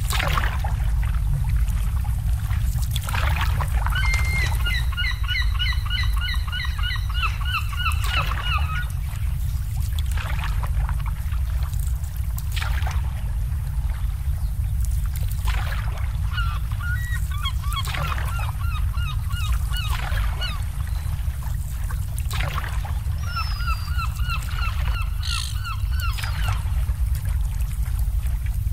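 Water birds calling in three bouts of rapid, repeated calls, over a steady low rumble of wind and lapping water.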